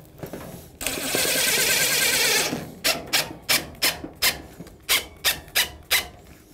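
Cordless drill-driver tightening the worm screw of a gear clamp on a foil dryer duct: the driver runs steadily for under two seconds, then comes about ten short sharp bursts, roughly three a second, as the clamp snugs down.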